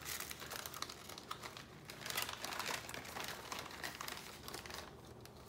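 Plastic and tissue packaging crinkling and rustling as it is handled and put back into the box, in irregular crackles that die down just before the end.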